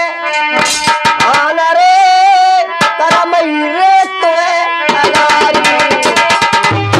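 Indian devotional bhajan music: harmonium playing a melody of held notes with a gliding melodic line over it. About five seconds in, a hand-played dholak joins with rapid strokes in a quick rhythm.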